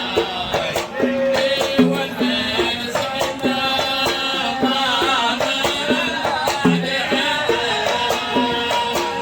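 Live Kuwaiti sawt music played by a Hadhrami wedding band: pitched melody instruments over a steady pattern of drum strokes.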